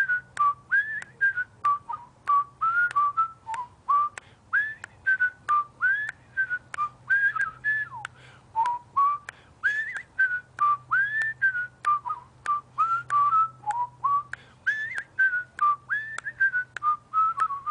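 A whistled tune of short notes, many sliding up into pitch, over a steady light clicking beat: a whistling music track.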